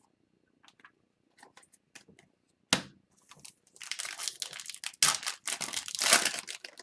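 A foil trading-card pack wrapper being handled and torn open. There is one sharp snap about three seconds in, then dense crinkling and tearing through the second half.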